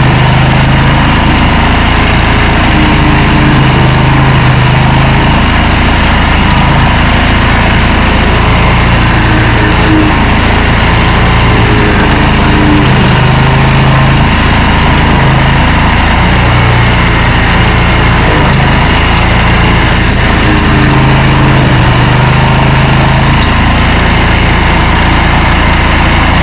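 Stump grinder engine running hard and steadily, its low note swelling and easing every second or two as the load changes.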